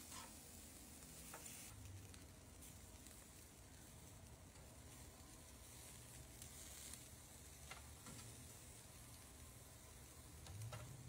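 Chicken drumsticks sizzling faintly on a grill grate, with a few light clicks of metal tongs against the grate as the pieces are turned.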